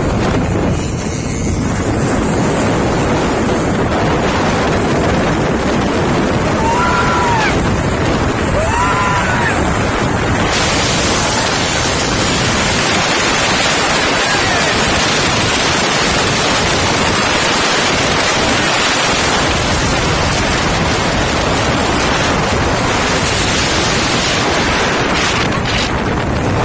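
Loud, steady rushing of wind on the microphone, with a few short, faint rising-and-falling whistles about a third of the way in.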